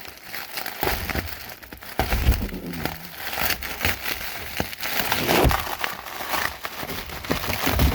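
Bubble wrap being handled and pulled apart while unwrapping a package: irregular plastic crinkling and crackling, with dull handling thumps.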